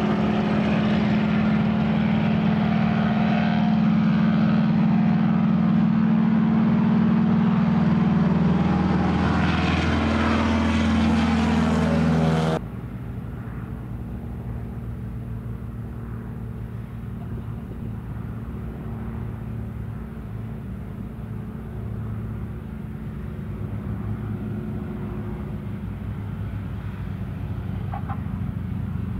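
North American T-6G Texan's Pratt & Whitney R-1340 nine-cylinder radial engine and propeller running loud and steady at takeoff power, its pitch sliding down over the last few seconds. About twelve seconds in it cuts abruptly to a quieter, lower engine drone at reduced power as the plane comes in to land and rolls out.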